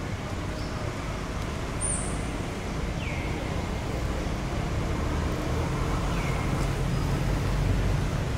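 Steady low outdoor rumble, with a short falling chirp repeating about every three seconds.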